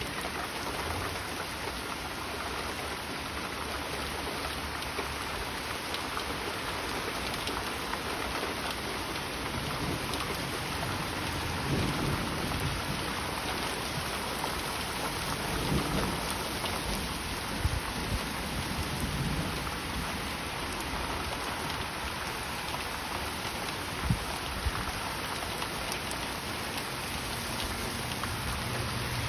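Heavy rain falling steadily in a thunderstorm, with several low rumbles of thunder through the middle and a few sharp knocks near the end.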